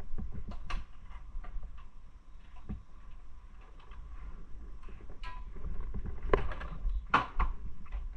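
Scattered clicks and knocks from handling a motorcycle and its hard top case while parking it, over a steady low rumble; the loudest knocks come between about six and seven and a half seconds in.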